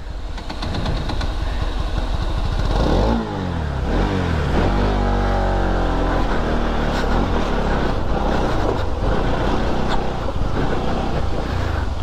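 Motorcycle engine running under way. It revs up sharply about three seconds in, eases off for a moment, then climbs steadily in pitch as it accelerates.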